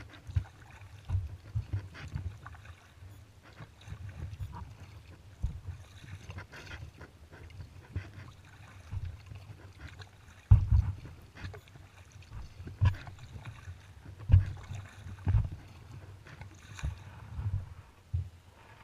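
Kayak being paddled: irregular low knocks and thumps of paddle and water against the hull, with light splashing from the strokes. The loudest knocks come about ten and fourteen seconds in.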